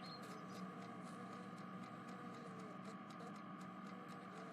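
Faint room tone with a few light, scattered ticks.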